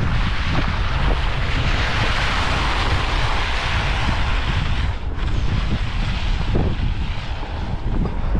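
Wind buffeting the microphone with a steady low rumble, and a hiss that swells over the first few seconds and drops off about five seconds in.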